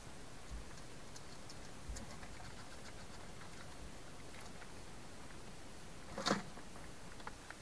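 Hedgehog eating from a bowl at close range: faint, irregular small clicks of chewing, with one louder brief scuffle about six seconds in.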